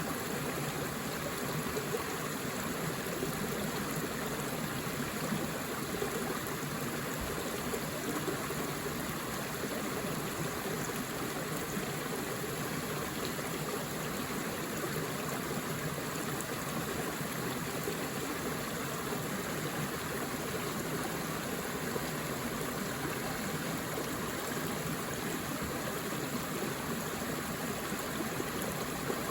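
Forest river flowing: a steady, even rush of running water over rocks, with no change through the stretch.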